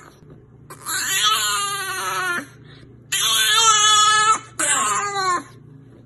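Puppy crying in three long, drawn-out wails, its head stuck through a narrow gap beside a baby gate: distress cries.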